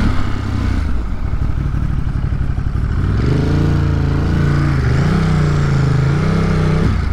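Ducati Monster's 937 cc V-twin engine running as the motorcycle rides slowly through traffic. It is a rough rumble at first; from about three seconds in, its pitch rises and falls with small throttle changes.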